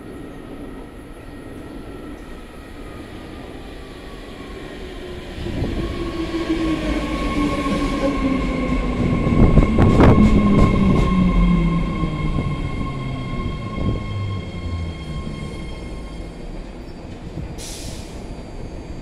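BART Fleet of the Future six-car train with IEC Holden traction motors pulling into a station platform and braking to a stop: the motor whine falls steadily in pitch as it slows, loudest about halfway through as the cars pass close by. A short high hiss comes near the end as the train stands.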